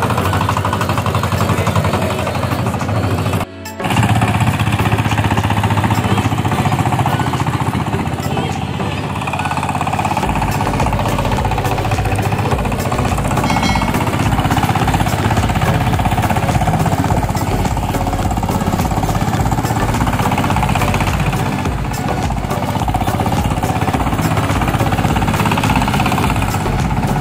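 Homemade boat tractor's Chinese single-cylinder diesel engine running hard under load as it drags a disc plough through wet paddy mud. The sound drops out briefly a few seconds in.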